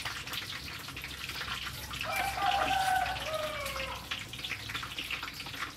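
Chopped garlic, shallot and chili scraped with a knife off a wooden cutting board into a pot of liquid sauce, with small clicks and patters over a steady watery hiss. A faint voice rises briefly about two seconds in.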